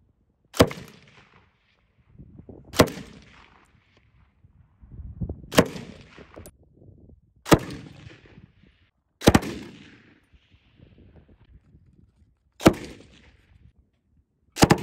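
Belt-fed machine gun fired in single shots, about seven of them spaced two to three seconds apart, each trailing off in echo; the last is a quick double.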